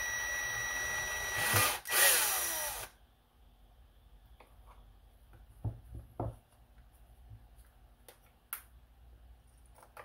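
Low-torque electric screwdriver running for about three seconds with a brief break near the middle, backing a screw out of the robot vacuum's plastic chassis; after it stops, a few faint clicks as parts are handled.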